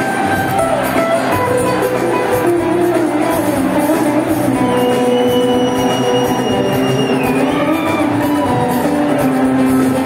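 Live band music: a rock band with drum kit, guitars and keyboard playing, with long held notes, one high note sliding down in pitch about seven seconds in.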